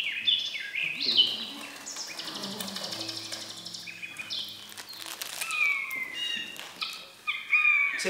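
Birdsong played as a stage sound effect: quick chirps and trills, then several clear whistles gliding down in pitch about six seconds in. A faint low hum sits under the middle of it.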